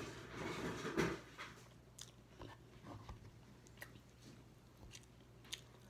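Close-up chewing and mouth sounds of a person eating a rice-and-noodle bowl. The chewing is loudest in the first second or so, then quieter, with scattered small clicks.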